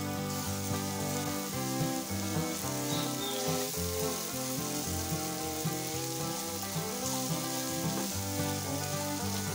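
Chopped onion and whole spices sizzling in hot oil in a frying pan as they are stirred with a silicone spatula. Background music with changing notes plays over it.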